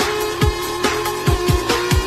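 Background electronic dance music with a steady kick drum beat, about two beats a second, under held synth notes.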